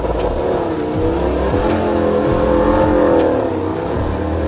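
Aprilia RS-GP MotoGP bike's V4 engine running as it pulls away, its pitch rising to a peak about three seconds in and then dropping.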